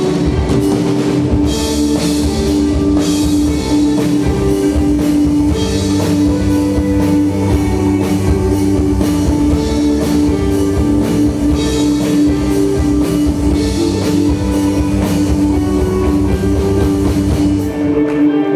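Live rock-style worship band playing an instrumental passage: strummed acoustic guitar over drum kit, bass and a held keyboard note, with cymbal washes every few seconds. Near the end the drums drop out, leaving the guitar.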